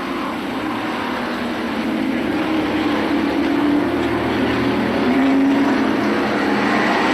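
Engines running in a steady drone whose pitch wavers, growing somewhat louder partway through.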